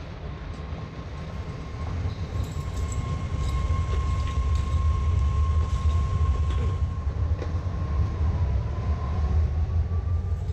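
BART train running with a heavy low rumble and a steady whine that starts to rise in pitch about eight seconds in, with faint rail clicks.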